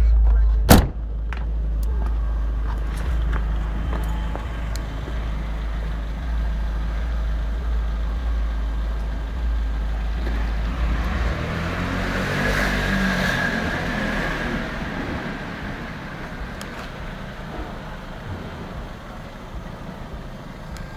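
Opel Astra Coupe's engine idling through its tuned exhaust, a steady deep rumble. A single sharp knock comes about a second in. The sound grows fuller around the middle, then the deep rumble drops away and the level fades toward the end.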